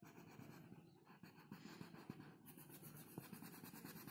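Faint scratching of a pink colouring pen on paper, in short back-and-forth strokes as it fills in a flower petal.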